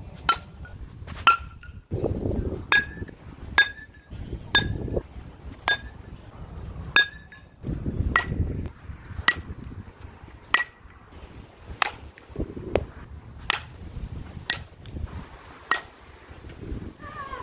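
A quick series of baseball bats striking pitched balls: about fifteen sharp metallic pings, roughly one a second, each with a short ringing tone whose pitch shifts from one group of hits to the next. Wind buffets the microphone with low rumbles between the hits.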